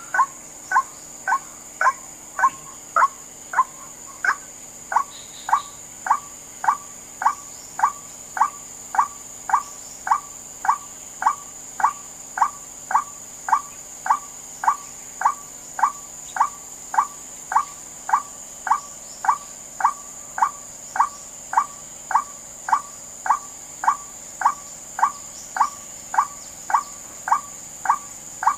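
Lure recording of a white-breasted waterhen (wak-wak) call played on a loop: short, slightly falling 'wak' notes repeated very evenly about twice a second.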